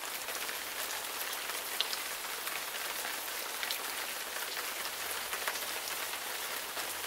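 Rain falling steadily, an even hiss with scattered sharp drop ticks.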